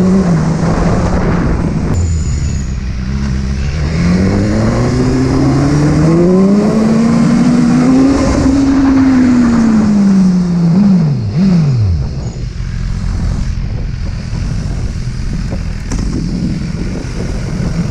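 BMW sportbike's engine heard from the rider's seat, climbing steadily in revs for several seconds and then easing back. About eleven seconds in the pitch swings sharply twice. After that the engine fades under a steady rush of wind and road noise.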